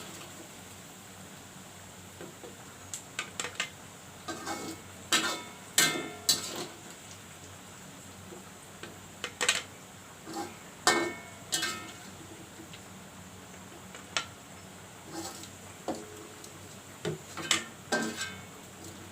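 Metal utensils and cookware clinking and clattering in a kitchen: a string of separate sharp knocks with pauses between them, some ringing briefly, as food is lifted out of a pot.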